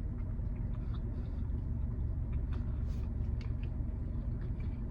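Steady low rumble of a car idling, heard inside the cabin, with scattered faint clicks over it.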